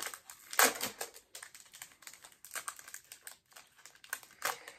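A Panini football card pack being opened and its cards handled: light, irregular crinkling of the wrapper and small clicks of cards, with one louder crackle about half a second in.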